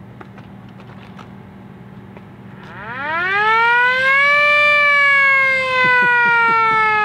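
Hand-crank siren being cranked: after a few faint clicks, a loud wail rises steeply in pitch about three seconds in, peaks, then slowly falls.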